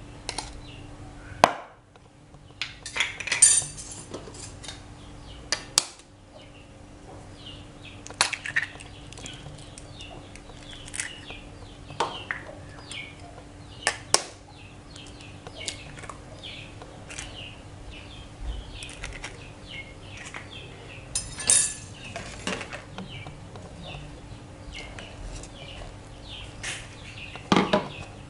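Scattered small taps, clicks and scrapes of a metal spoon and eggshells against a plastic mixing bowl as powder is spooned into flour and eggs are cracked in, over a faint steady hum.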